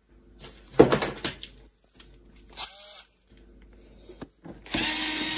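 A couple of knocks about a second in as the cassette deck is handled on the bench. Near the end a power screwdriver starts whirring steadily, backing out the screws of the deck's bottom cover.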